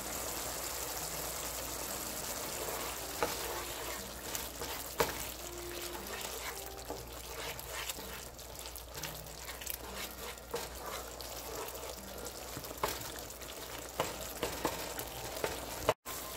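Chopped tomato, onion and garlic sauce sizzling in a frying pan as a wooden spatula stirs and scrapes through it, with a few light knocks of the spatula against the pan.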